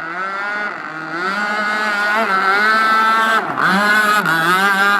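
Gas-powered RC boat's two-stroke engine running at high revs, its pitch wavering as the throttle is eased and opened again. It gets louder about a second in, and about three and a half seconds in the revs drop briefly and climb back.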